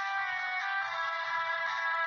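Instrumental backing music of several sustained, steady tones held together, the notes changing now and then, thin with little bass; no singing voice.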